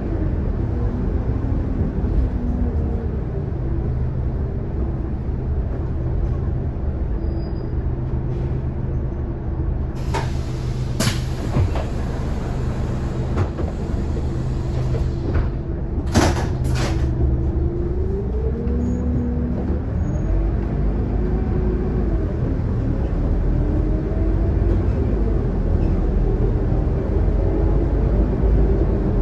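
Scania K280UD double-decker bus heard from the lower deck while driving: a steady low engine drone with a whine that rises and falls as the bus speeds up and slows. A few sharp knocks or rattles come about ten seconds in and again around sixteen seconds.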